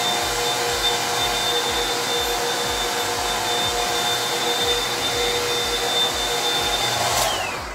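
Hand-held hair dryer blowing steadily with a high whine. It is switched off near the end, and the whine falls as the motor winds down.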